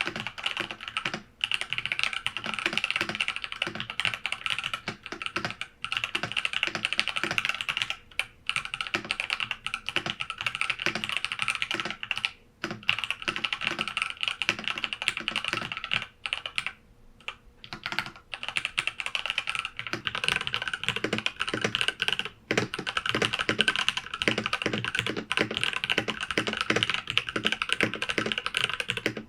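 IQUNIX F65 Hitchhiker mechanical keyboard with TTC Gold Pink linear switches being typed on fast and continuously, picked up by a camera's built-in microphone. A dense run of keystroke clacks with a few brief pauses, the longest about a second just past halfway.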